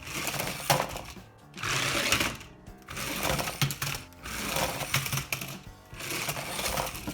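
Small electric motor of a radio-controlled Grave Digger toy monster truck whirring in about five short bursts, on and off roughly every second and a half as the throttle is pulsed.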